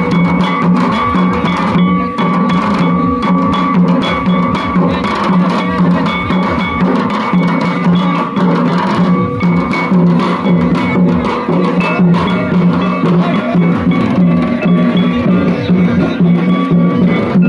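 Santali dance music: several hand-beaten double-headed barrel drums play a dense, steady rhythm under held melodic notes.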